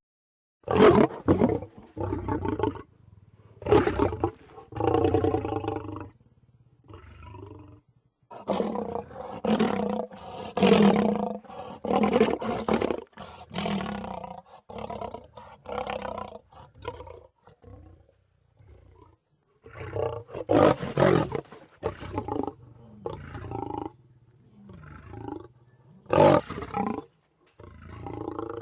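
Lion growling, snarling and roaring in a string of separate loud calls a second or two long, with short pauses between them.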